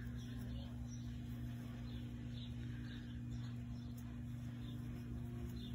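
Quiet room tone: a steady low hum, with a few faint, soft rustles of yarn being worked on a crochet hook.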